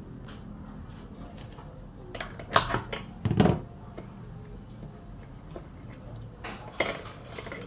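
Metal parts of a stripped-down Stihl chainsaw clinking and knocking as they are handled at the clutch, in a few short clusters: a run of clicks and a heavier knock two to three and a half seconds in, and more clinks near the end.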